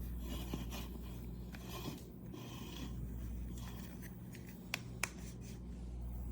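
Rubbing and scraping handling sounds, with two sharp clicks close together a little under five seconds in, over a steady low hum.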